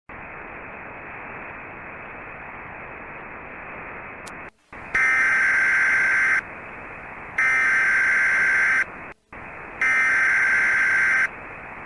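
Steady radio static, a brief dropout about four and a half seconds in, then three loud buzzy bursts of Emergency Alert System SAME header data, each about a second and a half long, with static between them.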